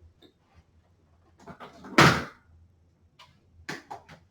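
A single loud thump about two seconds in, with a few fainter knocks and clicks near the end.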